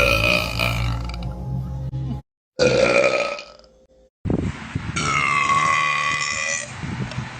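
A woman belching three times across quick cuts: one belch at the start, a shorter one about two and a half seconds in, and a long, drawn-out belch held for nearly two seconds from about five seconds in.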